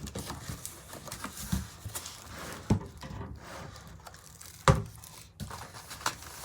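Rustling and crinkling of box packaging as parts are lifted out, with several sharp knocks, the loudest about two-thirds of the way through.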